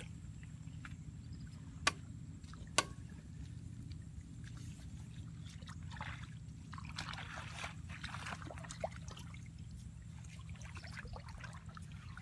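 Kubota RT140 DI single-cylinder diesel engine idling steadily with a low hum. Two sharp clicks, about a second apart, come about two seconds in.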